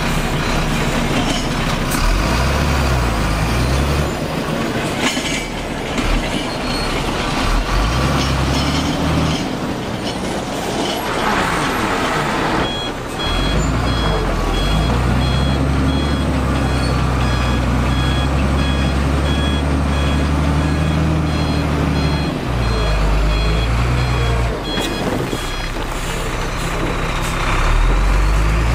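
Heavy diesel construction machinery running, its engine note rising and falling. About halfway through, a vehicle's reversing alarm starts beeping at a steady pace, keeps on for some thirteen seconds, then stops.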